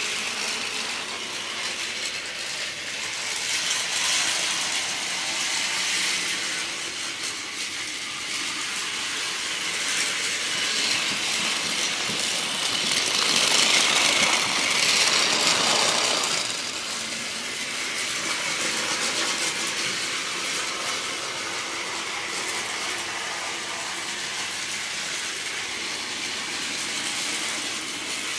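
Battery-powered Plarail (Tomy Trackmaster) toy trains running on plastic track: a steady whir of small motors and gearboxes, louder for a few seconds around the middle.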